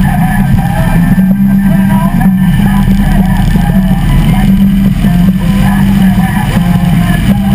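Harley-Davidson V-twin engine running steadily at cruising speed, heard from the bike itself, with wind and road noise over the microphone.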